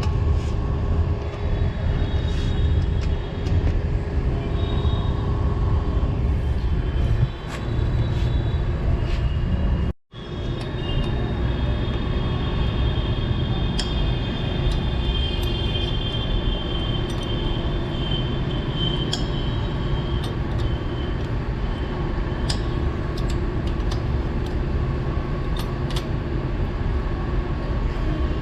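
Steady low machinery rumble with scattered light metallic clicks and a faint high whine; the sound drops out for an instant about ten seconds in.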